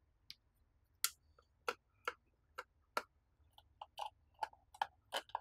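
Precision screwdriver turning a screw out of a plastic speaker control pod: about a dozen sharp clicks and ticks, two or three a second, coming quicker in the second half.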